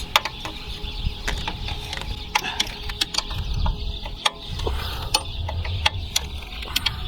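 Irregular metallic clicks and clanks of a wrench working a fuel line fitting loose at the bottom of a Cummins common rail, over low handling rumble.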